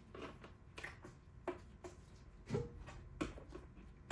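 Scattered clicks and knocks of a vice grip gripping and slipping as it tries to turn a stuck part in a vacuum's power-switch housing, the two loudest knocks about two and a half and three seconds in.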